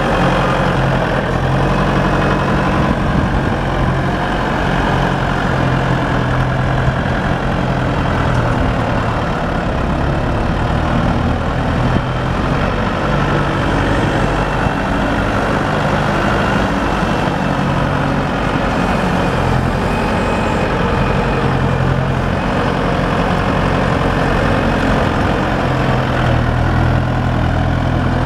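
Claas Elios 230 tractor's diesel engine running steadily as the tractor moves about, its low drone holding an even pitch and level.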